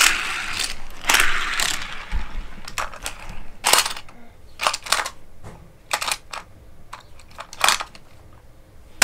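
Small die-cast toy cars and a plastic toy car track being handled, with clicks and clatter from the track's launcher. A brief scraping rattle comes about a second in, then a run of sharp plastic clicks and clacks.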